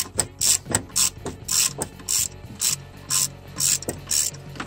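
Socket ratchet wrench on an extension clicking in short bursts, about two a second, as its handle is swung back and forth to run in the transaxle mounting bolts.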